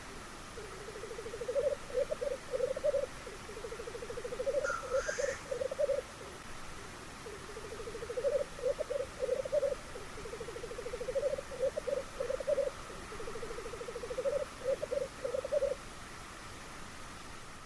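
Black grouse cocks at the lek, bubbling continuously in their low rolling song, phrase after phrase, each swelling into a few louder notes. A single short, higher rising call cuts in about five seconds in.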